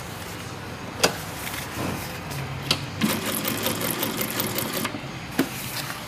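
Atlas AT2284 three-step zigzag industrial sewing machine sewing in short runs, the longest lasting about two seconds past the middle, with a few sharp clicks between runs.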